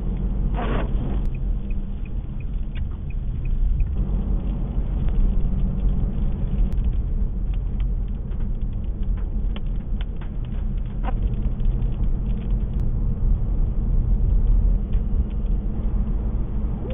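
Steady low rumble of a car driving on a wet road, heard from inside the cabin. Scattered light ticks of rain hit the windshield, mostly in the middle, and there is a brief swish about a second in.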